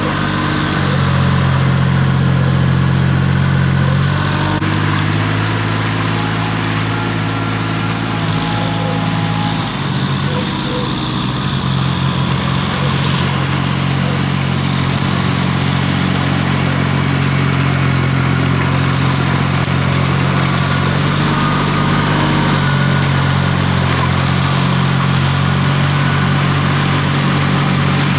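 Diesel engines of paddy tractors running steadily as they work a flooded rice field, the nearest a cage-wheeled tractor dragging a leveling board through the mud. The engine pitch shifts a little a few times.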